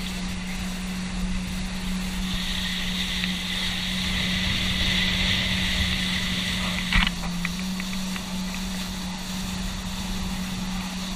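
Motorboat engine running steadily at speed, with rushing water and wind over it. A single sharp thump about seven seconds in.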